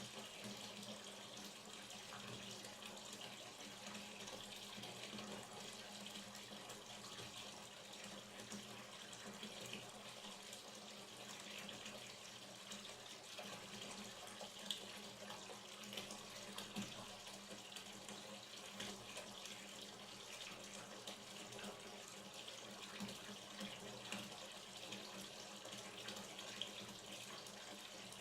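Hot water pouring steadily into a bathtub as it fills, an even running splash with a few brief louder spatters.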